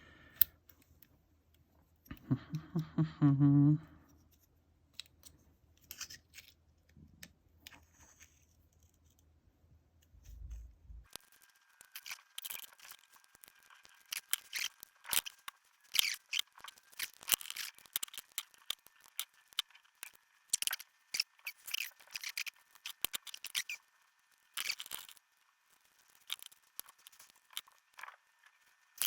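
Small metallic clicks and scrapes, irregular and tightly bunched through the second half, from a Yale euro lock cylinder being taken apart with a euro gutting kit.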